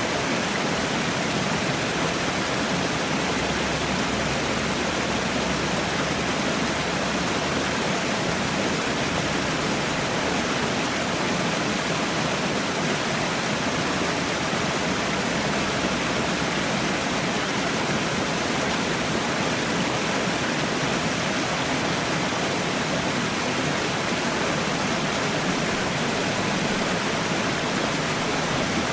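Falling water, such as a small waterfall or cascade, pouring steadily and evenly, with no change in level.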